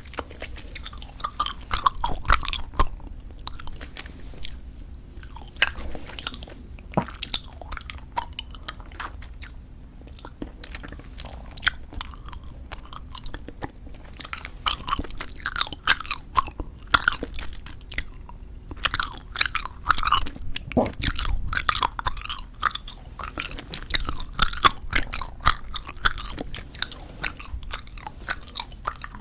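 Close-miked chewing of soft bubble gum: irregular wet, sticky clicks and smacks in quick runs, broken by a few short pauses.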